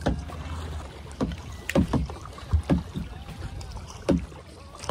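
Water splashing around a kayak: short irregular splashes and knocks of a paddle and small waves against the hull, about eight in all.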